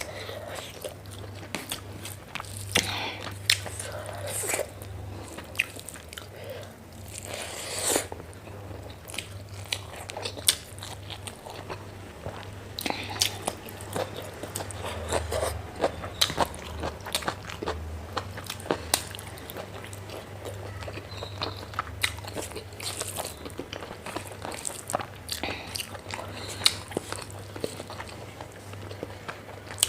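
Close-miked eating of pork fat with white rice: irregular wet mouth smacks, bites and crunches, over a steady low hum.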